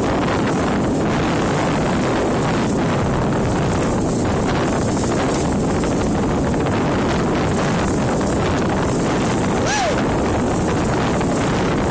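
Steady wind rush buffeting the microphone as a small motorboat runs across choppy water, with the hull and water noise underneath. About ten seconds in there is one short rising-and-falling squeak.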